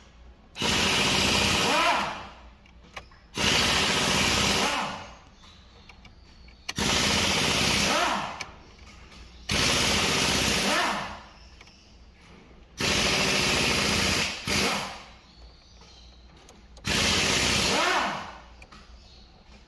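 Electric power drill run in six short bursts of about a second and a half, roughly every three seconds, each winding down as the trigger is let go.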